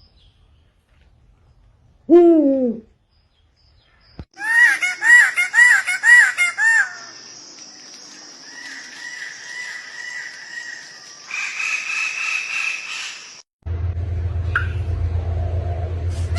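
Different bird calls cut one after another. First comes a single falling call, then a quick run of about six rising-and-falling calls, then fainter repeated calls and a higher, pulsing call. Near the end a low steady hum starts.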